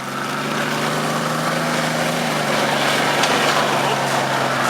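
Nissan Patrol's diesel engine running steadily at low revs, its pitch dropping slightly about halfway through.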